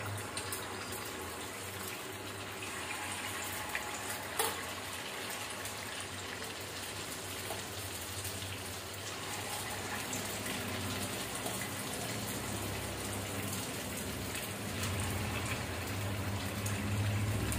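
Sunflower oil sizzling steadily around dosa-batter fritters deep-frying in a cast-iron kadai, with a brief click about four seconds in.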